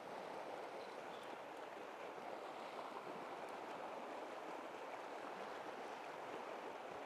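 River current running over a shallow riffle: a steady, soft rush of flowing water.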